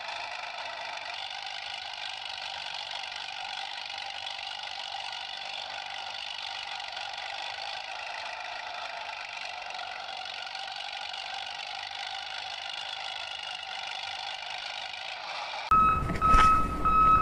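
Small electric motor and plastic gearbox of a wired remote-control toy front loader whirring steadily. Near the end, a louder ringing tone comes in over it.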